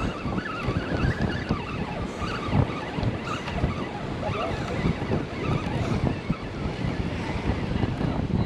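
Wind buffeting the microphone over surf breaking on the beach: a steady rush with gusty low rumbles.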